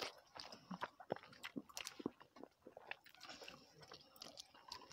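Faint mouth sounds of a person eating rice and chicken curry by hand: scattered soft clicks and smacks of chewing and biting.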